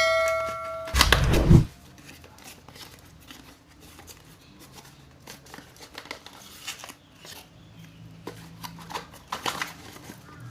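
Packaging of a wireless doorbell kit being worked open by hand: faint scattered rustling, crinkling and tearing, with small clicks. A bell-like chime fades out in the first second, and a loud thump comes about a second in.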